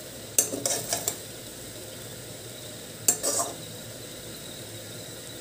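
Metal spatula scraping and clinking against a metal kadai while mixing cooked rice: a cluster of clinks and scrapes about half a second in and another around three seconds in, with a steady faint hiss between.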